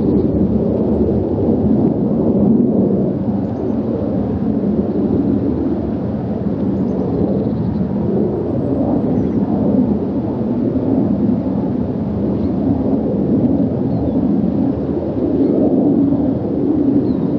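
Boeing 777-300ER airliner's twin GE90-115B turbofans climbing out at climb power overhead: a steady, deep, rumbling jet roar that swells and fades a little.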